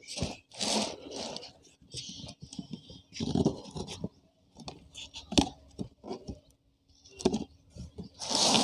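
Packing tape on a cardboard box being picked at, peeled and cut open by hand. Irregular scratching and scraping, with a few sharp clicks.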